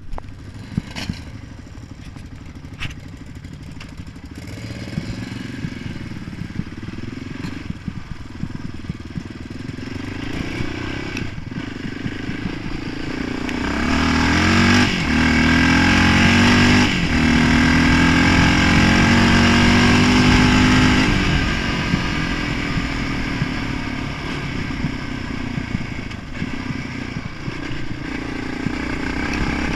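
Honda sport quad's engine heard from on board, running gently with a few sharp knocks at first, then revving up. It runs loud under throttle in the middle, its pitch climbing, dropping back twice and climbing again, then eases off and builds once more near the end.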